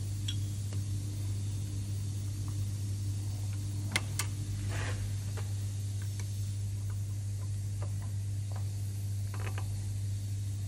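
Light metallic clicks and scrapes of a brake caliper's anti-rattle spring clip being prised and pressed into place by hand, with two sharp clicks about four seconds in and a few more near the end, over a steady low hum.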